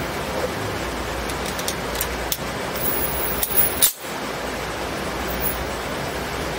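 Steady hiss of range ventilation, with light metallic clicks and clinks of a Sig Sauer P229 pistol being picked up and loaded, and one sharper, louder clack a little under four seconds in as it is loaded.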